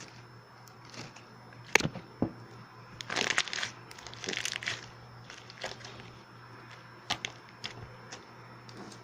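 Slime being pressed and squeezed by hand, giving sharp pops and clicks near the start and near the end and two short spells of crackling in the middle, over a faint steady hum.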